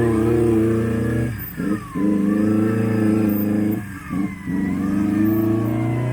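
Suzuki Vitara 4x4's engine running under load off-road, revving with two brief lifts of the throttle, about a second and a half in and again about four seconds in. A thin whine rises and falls with the engine speed.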